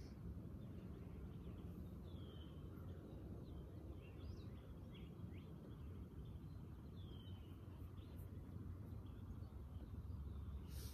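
Quiet outdoor ambience: a low steady rumble, with faint bird calls and chirps every second or two.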